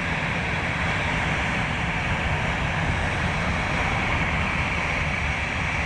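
Jet aircraft engine noise, a steady even rush with no change in level.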